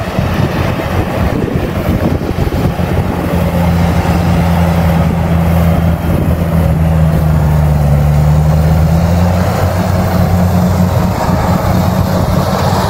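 Rice combine harvester's engine running steadily as the machine cuts ripe rice, a low drone that grows loudest through the middle of the stretch.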